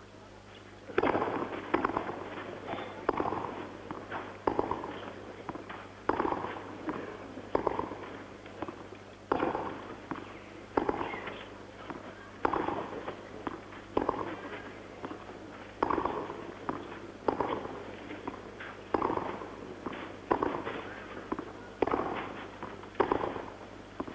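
Tennis ball struck back and forth in a long baseline rally on a clay court: a sharp racket strike every one and a half seconds or so, starting about a second in, over a steady low hum from the old broadcast recording.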